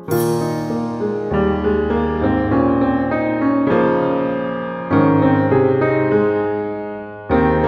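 Background music: slow keyboard chords, each struck and left to ring and fade, with a new chord every one to two seconds.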